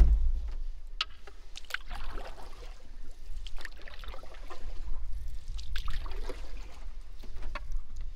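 Canoe paddle strokes in calm river water: repeated dips and swishes with dripping water, over a steady low rumble. A thump at the very start.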